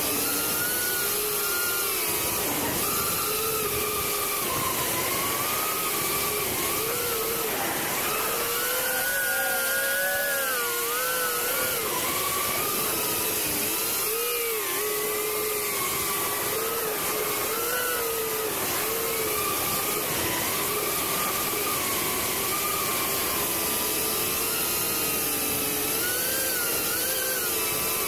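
Ducted FPV quadcopter's electric motors and propellers whining steadily, the pitch rising and falling as the throttle changes.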